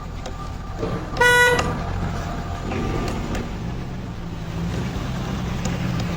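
A vehicle horn toots once, briefly, a little over a second in, over a steady low rumble of engine and traffic.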